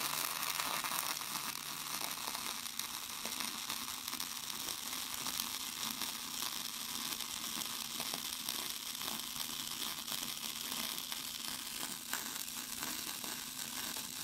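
Short-circuit (short-arc) MIG welding arc crackling steadily, just like bacon frying: the wire shorting into the weld puddle and blowing apart over and over, throwing spatter.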